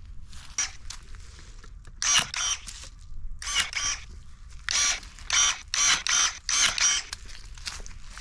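Battery-powered electric pruning shears working: short motor whirs in quick pairs as the blade snaps shut and reopens, repeated several times from about two seconds in, as grapevine canes are cut.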